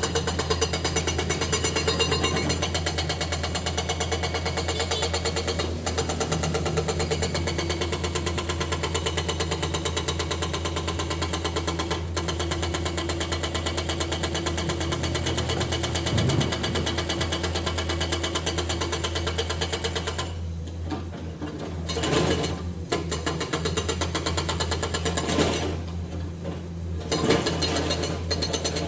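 Heavy diesel engine running steadily with a fast, even knocking pulse; its higher-pitched part fades briefly twice in the second half.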